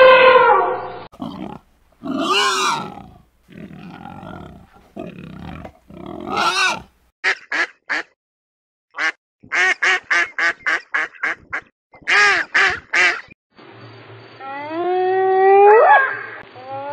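A string of animal calls from different animals cut one after another: a few drawn-out cries, then a quick run of short, repeated calls, then long calls that sweep steeply upward in pitch near the end.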